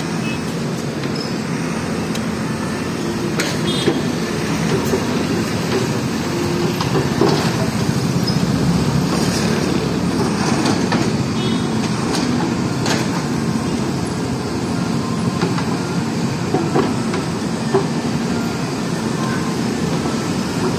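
A JCB backhoe loader's diesel engine running steadily as the machine works its bucket in a heap of earth and rubble, with scattered short knocks and clanks.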